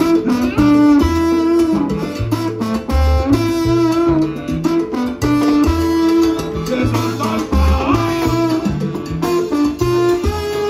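Live salsa band playing, with trombones and congas over a repeating bass pattern.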